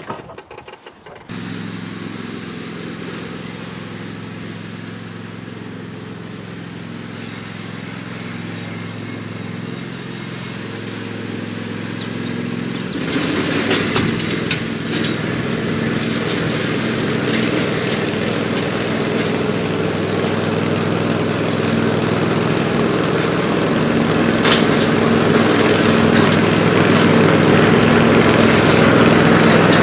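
Briggs & Stratton 24 HP V-twin OHV engine of a Craftsman ride-on mower starting about a second in and running steadily. About halfway through it gets louder and rougher with a rushing noise added, as the mower sets to cutting grass.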